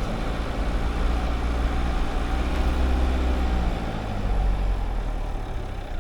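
Dacia Duster's 1.5 dCi four-cylinder turbodiesel engine running steadily, its note dipping slightly about four seconds in.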